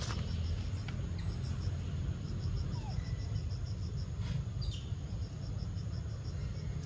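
An insect chirping in an even, rapid rhythm of about five to six pulses a second, over a steady low rumble.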